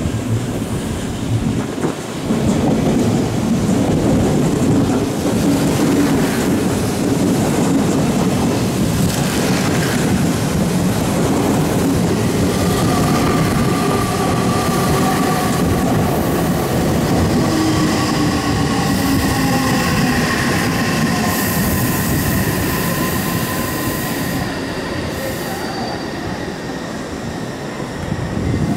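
Odakyu electric commuter train running past close by: a steady rumble of wheels on rails, with a whine at several pitches over the second half that slowly falls in pitch.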